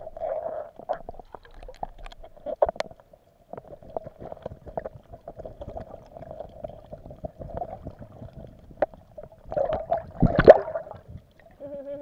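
Muffled underwater sound: many scattered clicks and taps over a steady faint tone, with a louder noisy burst about ten seconds in.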